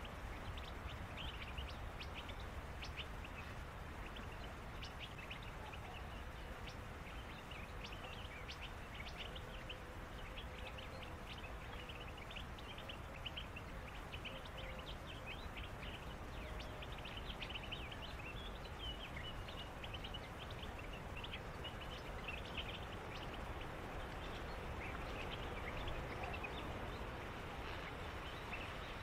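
Many birds in a reed bed chirping and calling in quick, overlapping short notes, over a steady background hiss.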